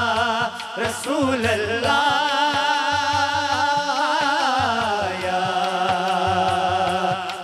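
A male naat reciter singing long, drawn-out notes of a Punjabi devotional naat with a heavy vibrato. The melody glides down about two-thirds of the way through, over a steady low rhythmic beat.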